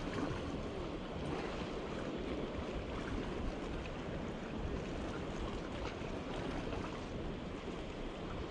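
Steady outdoor sea ambience: wind rushing over the microphone over the low wash of calm sea water.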